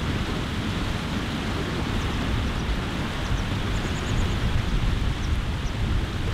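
Wind buffeting the microphone: a loud, gusty rumble.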